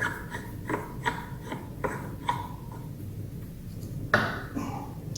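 Light clicks and clinks of metal tools being handled as a flywheel puller is fitted to the engine, about a dozen small strikes in the first two and a half seconds, then a single louder scrape or knock about four seconds in.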